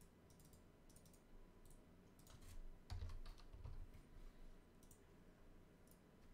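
Faint computer keyboard keystrokes and mouse clicks, scattered single taps with a few soft low knocks.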